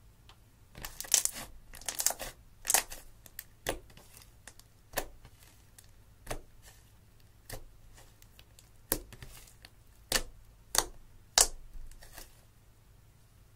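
Clear slime mixed with eyeshadow being poked and pressed with fingers: a string of sharp, sticky pops and crackles about once a second, starting about a second in.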